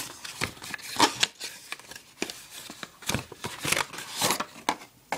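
Cardboard watch box being handled and opened by hand: irregular scrapes, taps and rustles of card sliding against card.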